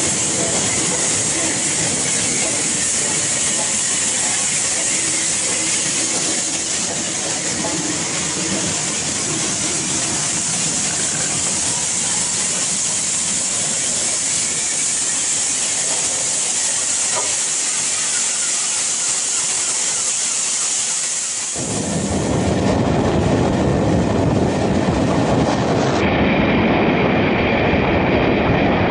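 Bulleid Battle of Britain class steam locomotive 34067 Tangmere passing slowly with a steady hiss of steam over the noise of the moving train. About 22 s in it cuts abruptly to a louder, fuller, steady noise of a steam-hauled train running on the rails round a curve.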